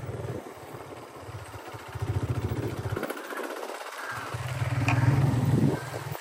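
Low rumble of a small vehicle engine, with a fine even pulsing. It swells twice, about two seconds in and again near five seconds, and drops away briefly in between.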